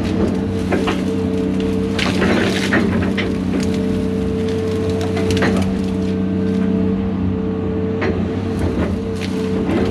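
Heavy diesel machine engine running at a steady speed while wood cracks and splinters in irregular snaps, as trees and brush are broken up.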